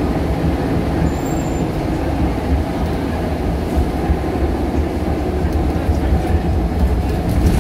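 Scania L94UB Wright Solar single-deck bus under way, heard from inside the passenger saloon: a steady, loud low rumble of diesel engine and road noise.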